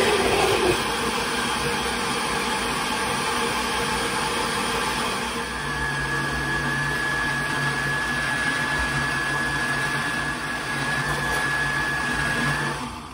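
Countertop blender running its automatic soup program, puréeing cooked carrot, apple and cashew soup. A steady motor noise is joined by a high whine about five seconds in, and the motor stops just before the end as the program finishes.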